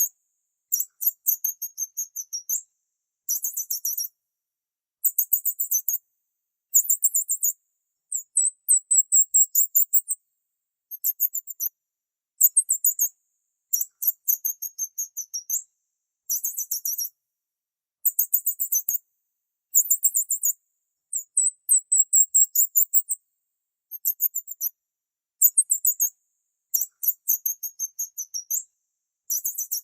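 Small bird chirping: very high-pitched, rapid twittering trills in bursts of about a second, repeated over and over with short pauses between.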